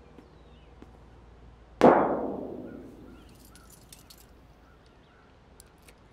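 A single loud impact about two seconds in, ringing out and fading over about a second.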